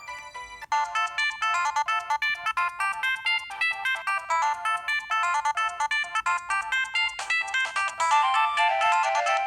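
A preloaded ZTE F102 mobile phone ringtone playing: a fast synthesized melody of quick, bright notes that starts under a second in after a short pause.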